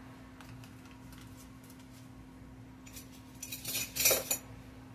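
A spoon scraping and clinking against a sour cream tub as sour cream is scooped out: a few faint clicks, then a short burst of scrapes and clinks about three and a half to four and a half seconds in.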